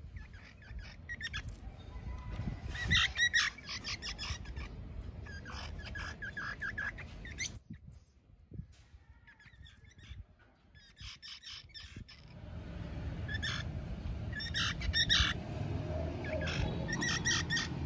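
Rapid trains of high, squeaky chirping calls from small animals, coming in bouts. About halfway through, a short, very high two-note whistle is the loudest sound, and from about twelve seconds in a low rumble of background noise sits under the chirps.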